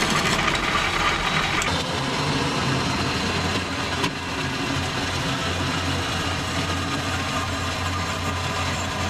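Old horizontal metal-cutting band saw running steadily with a constant motor hum as it cuts through steel exhaust pipe. A brighter, harsher noise in the first two seconds drops away, leaving an even running sound.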